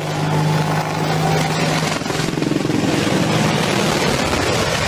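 Helicopter rotor and turbine noise from a helicopter flying low: a steady hum at first, then a rapid rotor chop from about two seconds in.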